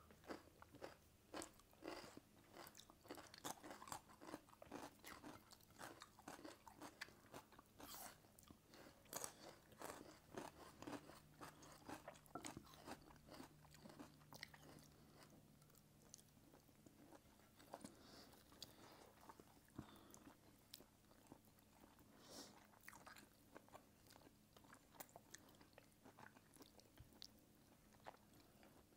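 Quiet, close-miked chewing and crunching of food eaten by hand, many short crisp bites and chews, busiest in the first half and sparser later.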